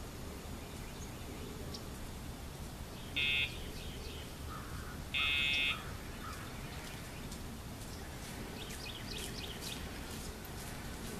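Dogtra e-collar pager buzzing twice, a short buzz and then a longer one about two seconds later: a cue to the dog, not a correction.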